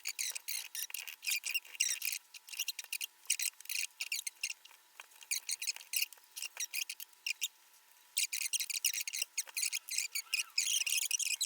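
Runs of small rapid clicks and scratches from a screwdriver turning 2.5 × 8 mm screws out of a laptop's plastic base, with short pauses between screws.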